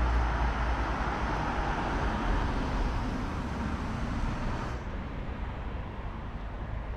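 Street traffic noise: a steady hiss over a low rumble from passing vehicles, the hiss dropping off suddenly about five seconds in.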